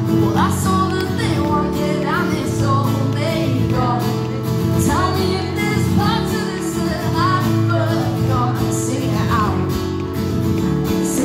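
A woman singing a song live, accompanying herself on a strummed steel-string acoustic guitar.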